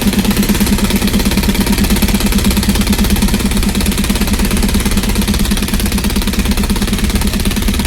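An engine idling steadily close by, with a fast, even throb.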